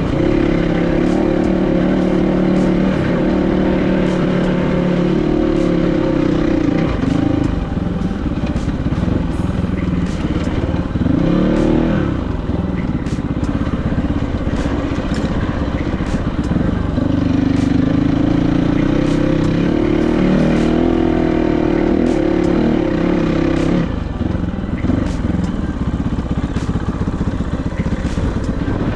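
Kovi 450i Pro enduro motorcycle's single-cylinder four-stroke engine running under way, holding steady revs for stretches and dropping then rising in pitch several times as the throttle is eased off and opened again. Scattered short clicks sound over the engine.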